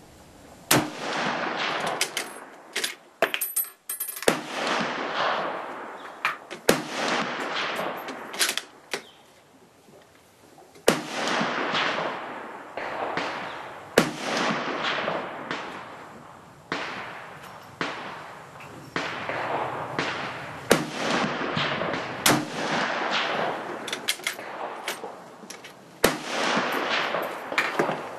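Rifle gunfire on a range, including a Japanese Type 99 Arisaka bolt-action rifle firing 7.7 mm rounds from a bench rest. There are more than a dozen sharp reports, one every one to three seconds, and each fades in a long echo under the covered firing line.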